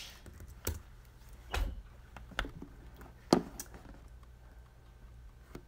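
A few scattered sharp taps and clicks on a computer keyboard, the loudest a little over three seconds in.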